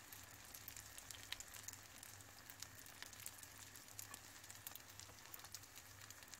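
Hot oil sizzling faintly around briouats, thin warqa-pastry triangles shallow-frying in a pan: a steady soft hiss with frequent small crackles.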